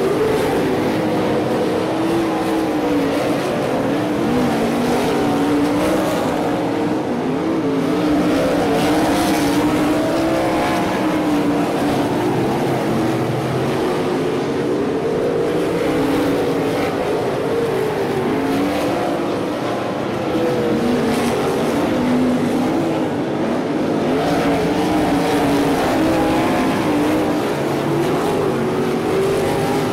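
A pack of 305 Racesaver sprint cars racing, their small-block V8 engines loud and continuous, rising and falling in pitch again and again as they lap.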